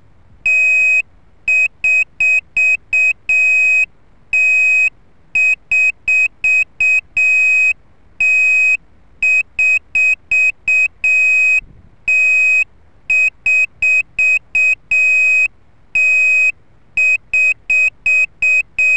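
Electronic beeper on a crashed quadcopter sounding a repeating alarm pattern: a long high beep, a quick run of short beeps, then another long beep, repeating about every four seconds. This is the kind of alarm used to help find a downed model.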